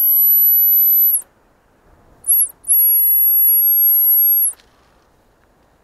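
Dog whistle blown in a shrill, very high steady tone. A long blast ends about a second in, then comes a short pip and a second long blast of nearly two seconds: a recall signal to call a hunting dog back.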